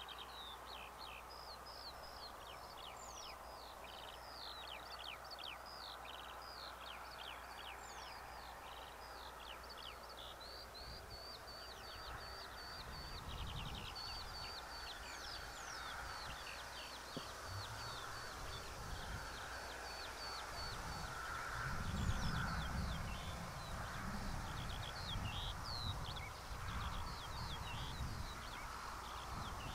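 Several wild birds singing and calling outdoors: many quick high chirps, downward sweeps and rapid trills overlapping throughout. From about a third of the way in, an irregular low rumble rises underneath, loudest past the two-thirds mark.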